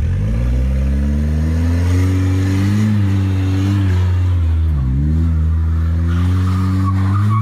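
Engine of a Mercedes revving: the pitch climbs over the first couple of seconds, holds high, dips briefly about five seconds in, and picks up again.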